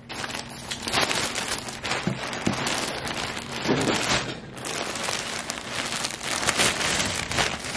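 Thin plastic poly mailer bag crinkling and rustling continuously as it is handled and pulled open by hand.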